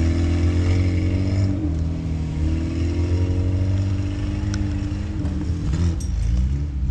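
Engine of an off-road 4x4 running steadily with a deep hum, its pitch rising and falling a little a couple of times as the throttle changes.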